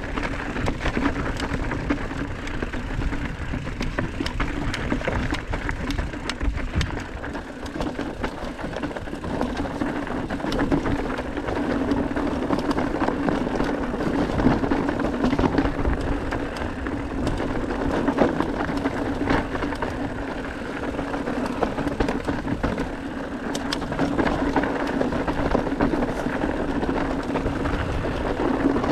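Enduro mountain bike ridden over a rough, stony dirt trail: tyres crunching on gravel and rock, with frequent clicks and rattles from the bike and a steady low hum underneath.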